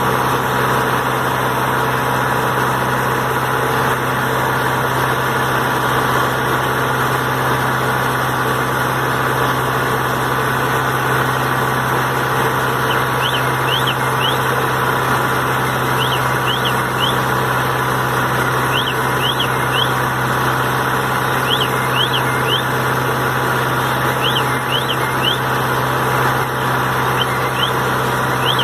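JF 4000 CS mixer running steadily with an even low hum. From about halfway in, short high chirps come in clusters of two or three every few seconds.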